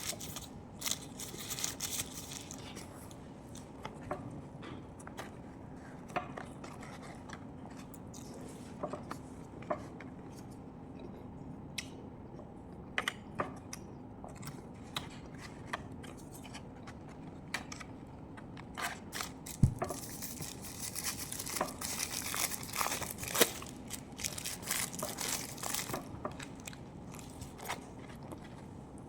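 A person eating close to the microphone: scattered crunches, clicks and crinkling. A sharp knock comes about two-thirds of the way through, followed by a denser run of crunching.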